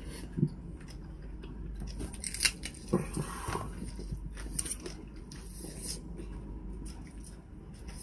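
People eating: chewing and mouth sounds with a few short clicks and taps scattered through, over a low steady hum.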